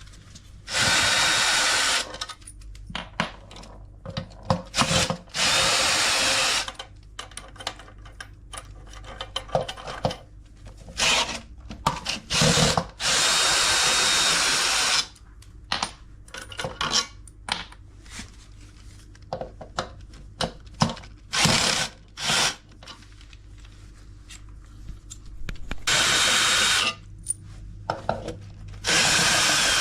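Cordless drill-driver running in short bursts of one to two seconds, about five times, unscrewing bolts, with clicks and knocks of parts and tools handled between the runs.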